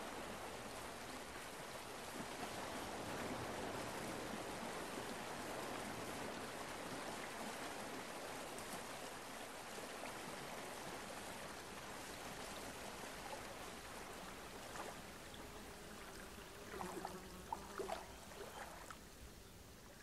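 Steady rushing of sea water, waves and wash, slowly fading, with a few brief sharper sounds near the end.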